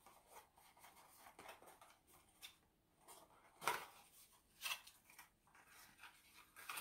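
Faint rustling and scraping of a small packaging box being opened by hand, with two louder short rustles about three and a half and four and a half seconds in.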